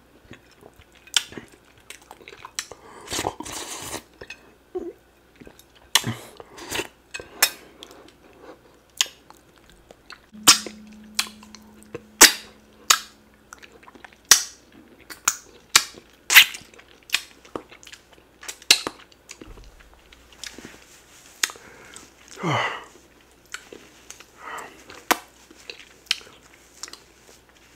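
Close-miked wet mouth sounds: sharp, irregular smacks and clicks of a man licking sticky ogbono soup off his fingers and chewing a small bite of oatmeal fufu.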